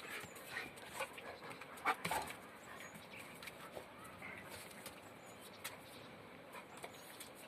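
Gaddi dogs at play: a few short, faint dog sounds, whines and yips among them, the loudest about two seconds in.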